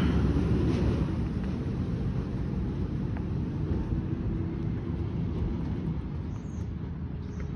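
Garbage truck engine rumbling low and steadily as the truck drives away, fading gradually.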